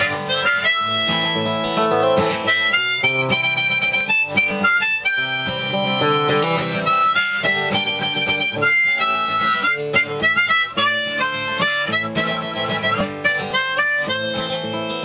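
Instrumental passage of a sea shanty: a harmonica plays the melody over acoustic guitar.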